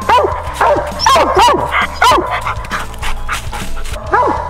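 Hound barking treed at the base of a tree: a steady run of loud barks, roughly two a second, each bending down in pitch, marking game up the tree.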